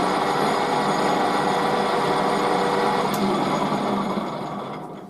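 Small metal lathe running steadily with its motor drone and a few held tones, then switched off and spinning down over the last second.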